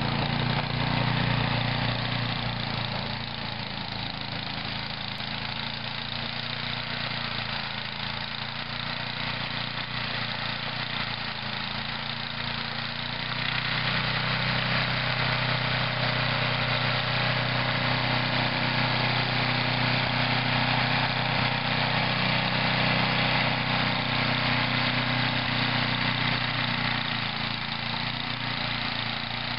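Toro snow thrower's small engine running steadily, getting louder about halfway through.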